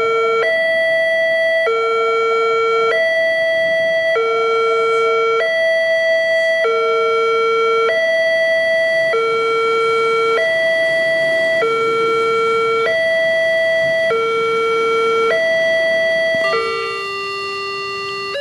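Railway level crossing warning alarm sounding as the barrier arm moves: an electronic two-tone signal, high and low notes alternating about every second. About 16 seconds in the pattern changes to a lower, steadier tone.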